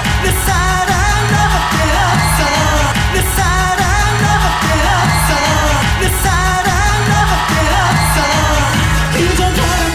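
Korean pop ballad sung by a male vocalist over a full band, with a steady bass beat and cymbals; the voice bends and wavers through long held notes.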